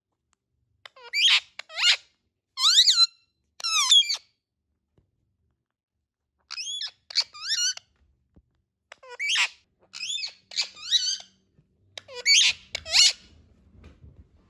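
Indian ringneck parakeet giving short, high-pitched squawking calls in clusters of two to four, with pauses of a second or two between clusters.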